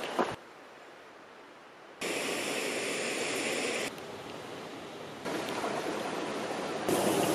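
Steady rushing outdoor noise with no distinct source, jumping abruptly louder or softer several times as the shots change, with a short sharp knock right at the start.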